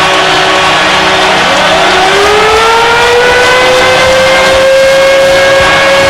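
Hockey goal horn blaring over a loud, cheering crowd, with a siren-like tone that rises about a second in and then holds steady.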